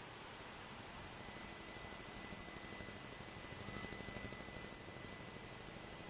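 Steady background noise with a faint, high-pitched electronic whine made of several steady pure tones.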